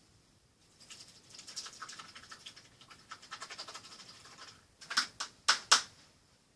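Rummaging through small hard objects, a busy patter of clicks and rattles for a few seconds, then four sharp clacks in quick succession near the end.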